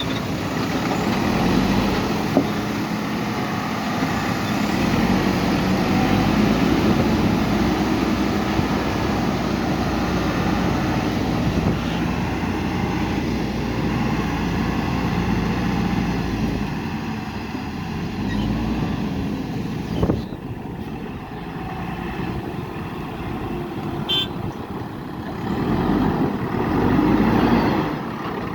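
Diesel engine of a JCB 3DX backhoe loader running under working load, its level rising and falling as the machine digs and loads gravel, with a couple of short knocks and a brief high tone about three quarters of the way through.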